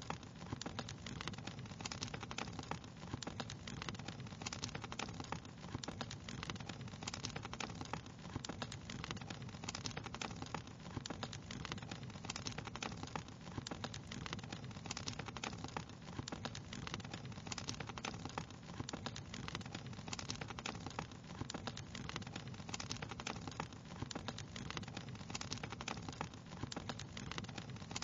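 Fire crackling steadily, with a constant scatter of small pops and snaps over a low, even background noise.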